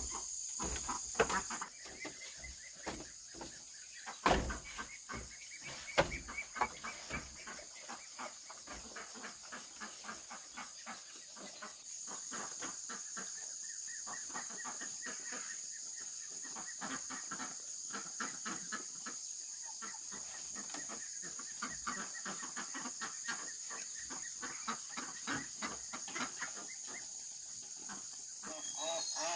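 Chickens clucking on and off over a steady high-pitched drone of insects, with a few sharp knocks in the first six seconds.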